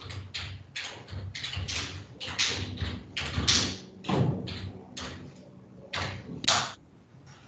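A rapid, irregular series of taps or knocks, about three a second, that stops near the end.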